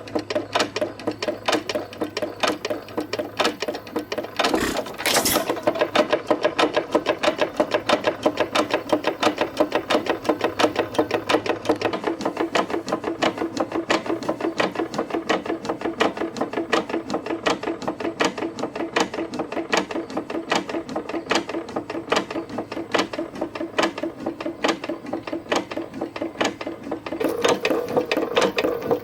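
4.5 Detroit Engine Works hit-and-miss engine running, with a fast, even clatter of clanking gears, knocking rod and pumping piston, and a heavier thump about four and a half seconds in.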